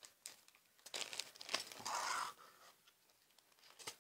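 Clear plastic storage sleeve crinkling and rustling as it is handled, with a few small clicks. The rustle is loudest for about a second and a half, starting a second in.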